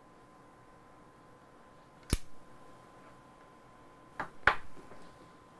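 Three sharp knocks or clicks over faint room noise with a faint steady tone: one about two seconds in, then two close together about four seconds in, the second of these the loudest.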